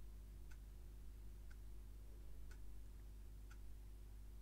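A clock ticking faintly, one tick a second, over a low steady hum.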